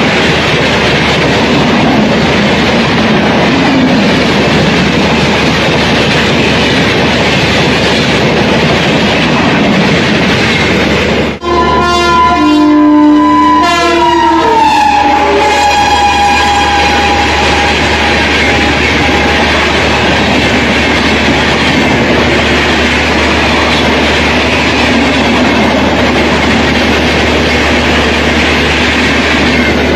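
Speeding Indian Railways train passing close by, with a steady loud rush and clatter of wheels on the track. About eleven seconds in, the sound breaks off for an instant. A locomotive horn then sounds for a few seconds, and its tone slides down in pitch as the train goes by.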